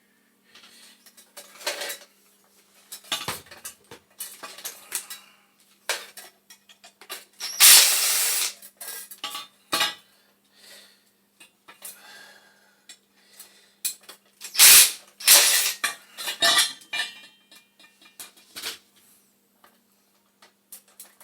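Metal parts and hand tools of a gas boiler's burner and pilot assembly clinking, clanking and scraping in irregular knocks as they are handled and worked loose, with two louder stretches of clatter, about a third of the way in and again about two-thirds through.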